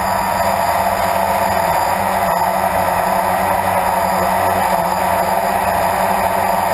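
Blade 350 QX2 quadcopter's electric motors and propellers buzzing steadily in flight.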